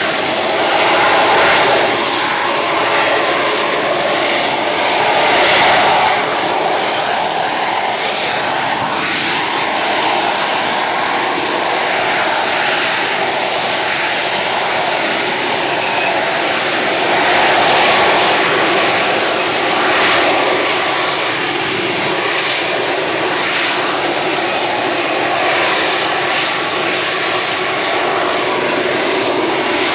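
Aircraft engine noise from an airplane flying a display, running steadily and swelling louder several times as it passes.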